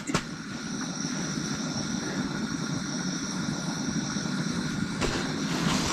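A steady motor drone with a faint high whine, which changes about five seconds in.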